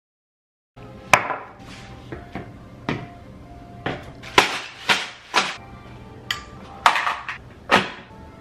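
Coffee things being set down one after another on a granite kitchen countertop: creamer bottles and a metal milk frother stand. About a dozen sharp knocks and clinks, starting about a second in.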